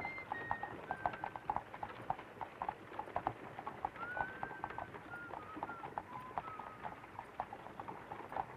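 Horse hooves clip-clopping in a quick, even rhythm, about four or five strikes a second, as a horse pulls a wooden farm wagon. A thin, whistle-like tune of held notes sounds over the hoofbeats.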